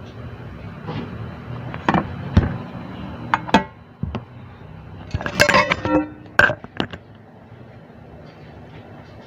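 Clinks and knocks of kitchen dishes and utensils, a ceramic bowl and spoon among them: about a dozen short strikes between two and seven seconds in, some ringing briefly, over a steady low hum.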